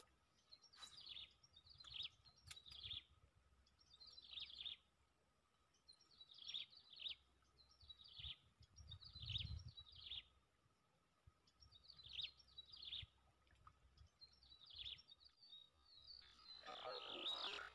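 Faint bird calls: short, high chirps that sweep downward, in little clusters repeated every second or so, over a faint steady high hum. Near the end a louder, noisier sound comes in briefly.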